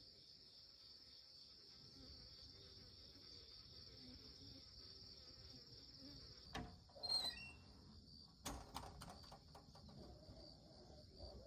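Crickets chirping steadily in a high, finely pulsing trill, with a couple of faint knocks and a short high chirp about halfway through.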